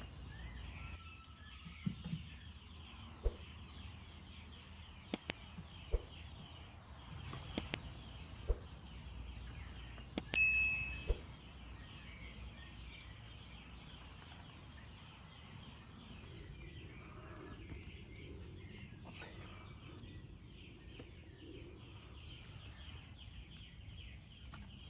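Outdoor ambience of small birds chirping, with scattered sharp clicks and a single metallic ding about ten seconds in.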